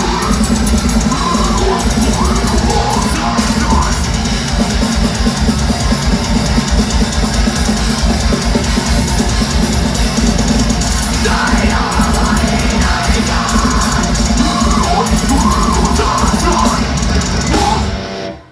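Death metal band playing live at full volume, with distorted guitars and fast drums in a dense wall of sound. The song cuts off suddenly near the end.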